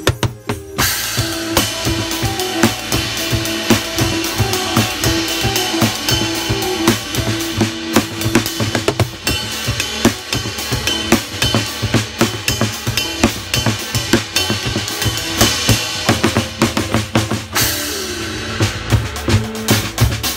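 A drum kit with cymbals and a towel-damped drum played with sticks in a busy, continuous groove, over a band backing track that carries sustained notes.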